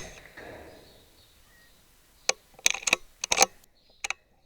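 A single sharp shot from a .22 BSA Superten air rifle right at the start, trailing off in a short echo, then a few scattered clicks and knocks about two and a half to three and a half seconds in.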